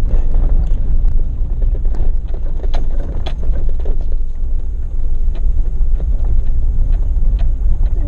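Jeep driving on a dirt road, heard from inside the cab with the windows closed: a steady low rumble of engine and tyres, with scattered short clicks and rattles.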